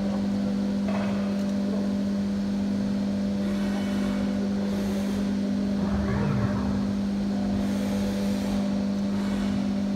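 Five-axis CNC machining centre running: a steady machine hum from the spindle and drives while the tilting trunnion table repositions, with a brief louder swell about six seconds in.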